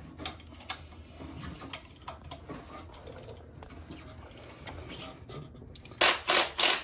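Light metallic clicks and rubbing as the bare cast-iron big-block and its lifting chain are handled. Near the end, about four short, loud rattling bursts from a cordless impact wrench.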